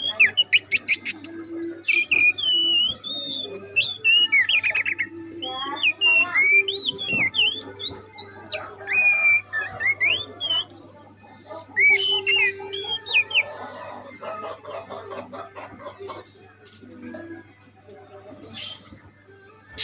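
Oriental magpie-robin (kacer) singing: varied, loud whistled phrases with notes gliding up and down, opening with a fast run of rising notes. The song thins out after about fourteen seconds, with one short note near the end.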